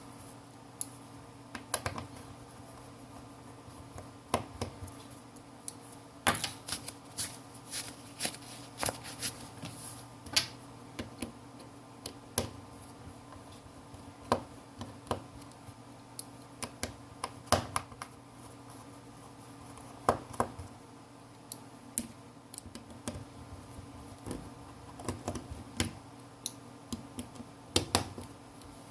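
Small irregular clicks and taps of a precision screwdriver and small metal screws on the phone's frame as the screws are taken out, over a faint steady hum.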